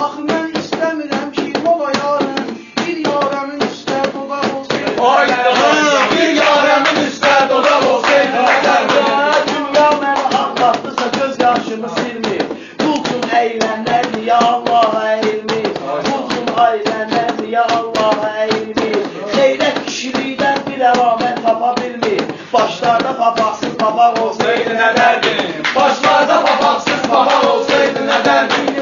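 Instrumental meyxana accompaniment: a pitched melody line over a fast, steady beat of sharp taps.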